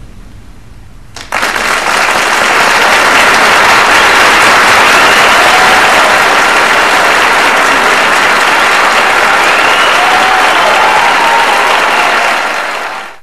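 Audience applause, breaking out suddenly about a second in at the end of a dance piece, holding steady and loud, then fading out near the end.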